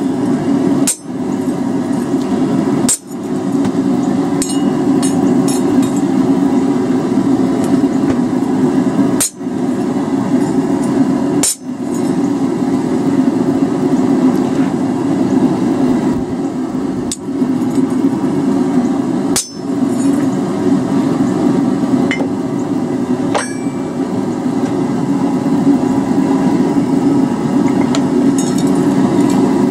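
Steady, rapid hammer blows on a hand-held fuller held against a hot steel feather on the anvil, with a few brief pauses.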